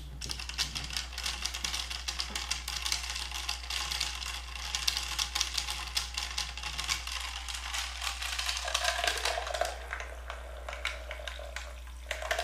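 Scientific Explorer Tornado Maker's small motor spinning a cocktail with mini ice cubes in its plastic cylinder: the ice rattles and clicks rapidly and continuously against the plastic.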